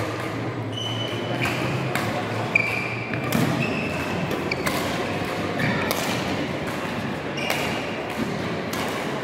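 Badminton play in a large hall: sharp racket strikes on the shuttlecock and footfalls, about a dozen impacts in all, mixed with short high-pitched shoe squeaks on the court floor.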